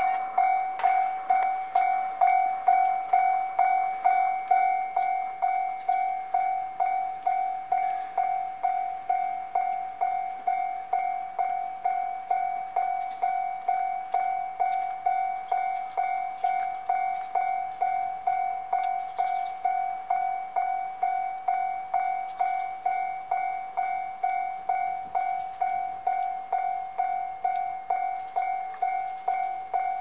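Japanese level-crossing electronic warning bell ringing its repeated ding, a little under two strokes a second, steady in pitch: the crossing is active, signalling an approaching train as the barrier comes down.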